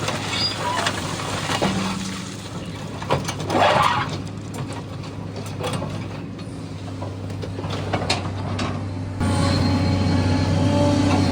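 SANY excavator's diesel engine running steadily, with scattered metallic clanks and squeaks from the working machine. About nine seconds in the engine sound suddenly gets louder.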